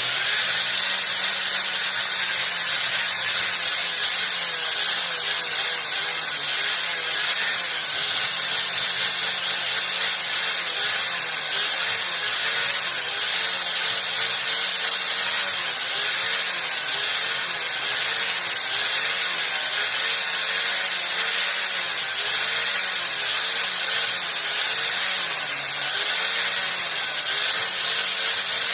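Electric power tool starts abruptly and runs continuously and loudly. Its hum dips and recovers in pitch every couple of seconds as the load changes.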